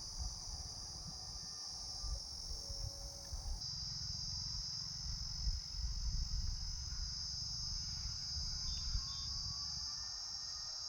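Crickets chirring in a steady, high-pitched chorus, with a low uneven rumble underneath.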